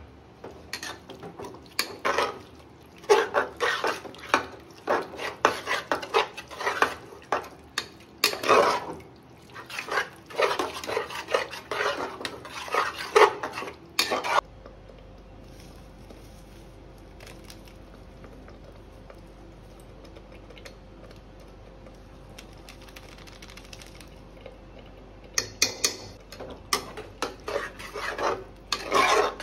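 Metal spoon clattering and scraping against a cooking pot as food is stirred, in quick irregular strokes. The clatter stops for about ten seconds midway, leaving a faint steady hum, and starts again near the end.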